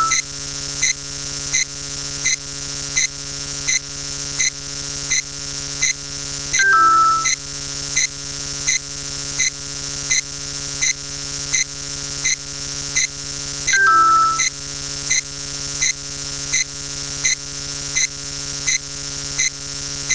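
Looping electronic sound effect: a steady hum under a regular ticking, with a short falling two-note beep about every seven seconds.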